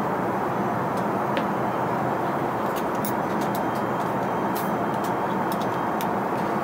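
Steady cabin noise of an Airbus A380 airliner in flight: an even rush of engine and airflow noise. From about three seconds in there is a scatter of light clicks.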